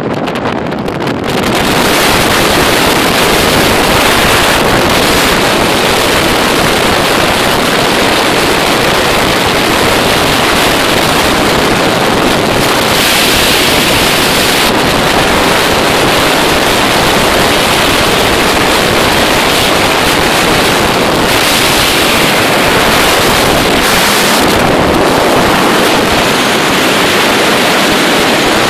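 Steady rush of wind buffeting the microphone while travelling at highway speed, with road and vehicle noise mixed in and no distinct engine note standing out.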